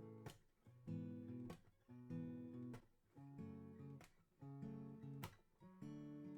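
Solo acoustic guitar strummed in chords with no voice, a strong strum about every second and a quarter and lighter strokes between, each chord ringing on.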